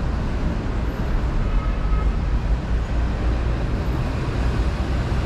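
Steady city street traffic noise: a continuous low rumble of passing cars under an even haze, with no single event standing out.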